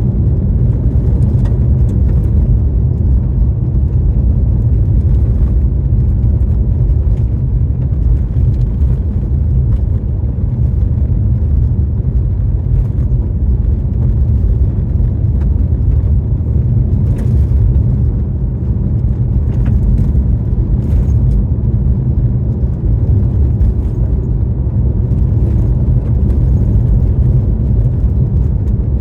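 A car driving on the road, with a steady low rumble of engine and tyres.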